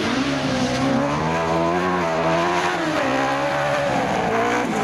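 Autocross race car engines running hard, their pitch rising and falling several times as the drivers accelerate and lift off, with a brief sharp drop just before the end.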